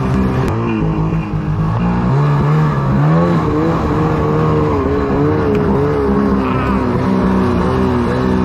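Ski-Doo snowmobile engine running. Its revs drop about half a second in, then waver up and down unevenly as the sled bogs into deep snow and tips onto its side.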